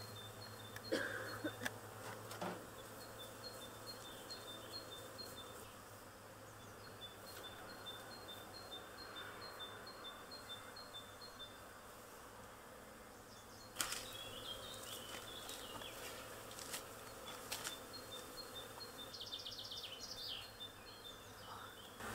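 Honeybee swarm buzzing as a steady, faint hum, with a bird repeating a short high note over and over and a few sharp knocks, the loudest about a second in and again about fourteen seconds in.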